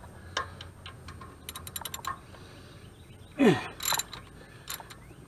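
A wrench working on the 12 mm distributor hold-down bolt of a Toyota 20R engine: scattered metal clicks and a quick run of rapid clicks. About three and a half seconds in there is a short falling creak, then two louder knocks.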